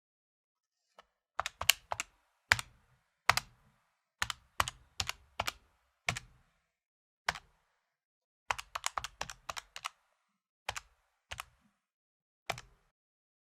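Fingers tapping the keys of an electronic calculator: sharp plastic key clicks, some single and some in quick runs of several presses, with short pauses between.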